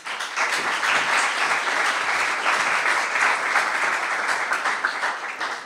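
Audience applauding, many hands clapping together, steady and then fading near the end.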